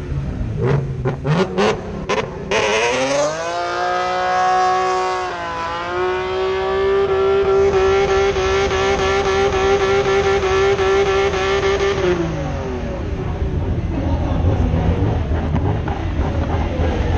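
Drift car doing donuts with its rear tyres spinning in smoke. After a few short sharp sounds, the engine revs up about three seconds in and is held at high revs for around eight seconds, then drops back and gives way to tyre and crowd noise.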